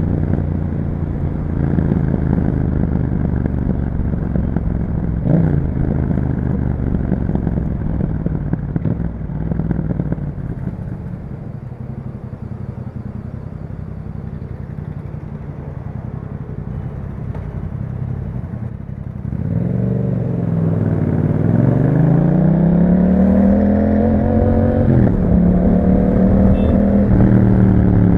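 Yamaha MT-07's parallel-twin engine through an Akrapovic exhaust with dB killers, on a ride: the engine note holds fairly steady, eases off and quietens through the middle, then about two-thirds in the pitch dips and climbs as the bike accelerates, with a short drop near the end as it shifts up.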